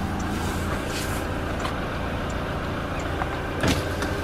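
Toyota Hilux diesel engine idling steadily, with one short knock about three and a half seconds in.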